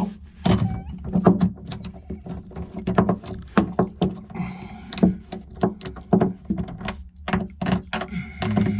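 Irregular clicks, taps and knocks of hands working in a cramped fiberglass boat lazarette, fitting fender washers and nylon lock nuts onto hull-to-deck joint bolts.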